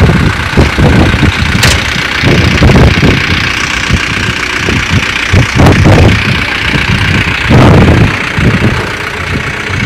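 A vehicle engine running at idle, a loud uneven low rumble that surges and dips irregularly.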